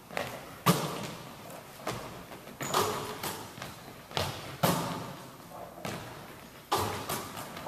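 A basketball in a large gym: a string of sharp thuds as the ball is passed, caught and hits the hardwood floor, each echoing through the hall.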